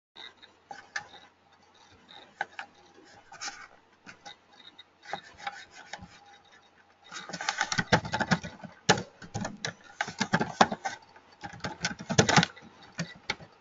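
Typing on a computer keyboard: a few scattered, fainter clicks at first, then a dense run of quick keystrokes from about halfway through, stopping shortly before the end.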